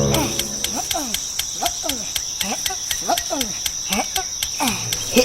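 Crickets trilling steadily, with a fast, even ticking, over short calls that slide up and down in pitch about twice a second.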